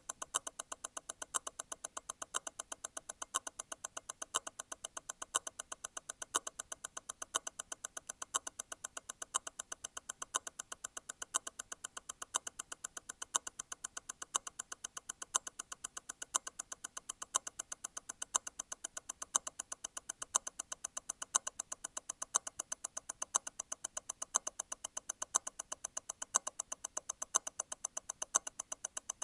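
Grand Seiko T0 Constant-force Tourbillon hand-wound movement ticking at 28,800 vibrations per hour, eight beats a second. About once a second a louder click is heard: the constant-force mechanism's stop wheel disengaging and striking again once every eight vibrations.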